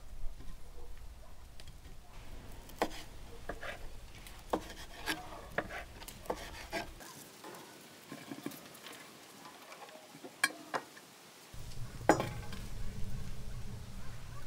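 Scattered clinks, scrapes and sharp knocks of cooking utensils against a pan or dishes while food is being stirred and handled. A low background rumble drops out for a few seconds in the middle.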